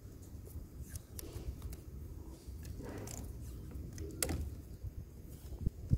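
Faint handling noise of hands working a wire joint against a PVC pipe: scattered small clicks and brief rustles, with one sharper click about four seconds in, over a steady low rumble.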